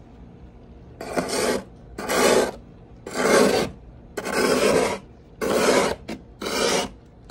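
Thick frost being scraped from the inside of a freezer compartment with a small utensil: about six scraping strokes, roughly one a second, starting about a second in.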